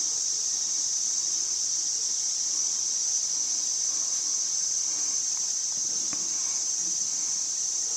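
Night insect chorus: a steady, unbroken high-pitched trill of crickets.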